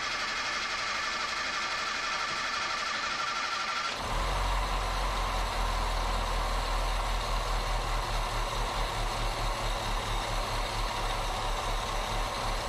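A 1977 Datsun B210's four-cylinder engine cranking on the starter for about four seconds, then catching and running steadily: its first start after the fuel system rebuild.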